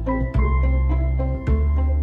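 Background music: a light instrumental tune with organ-like keyboard notes over a steady bass and beat.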